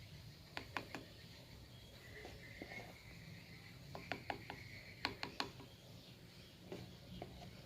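Light sharp clicks and taps of kitchen utensils in small clusters, over a steady low hum, with faint insect chirping in the background.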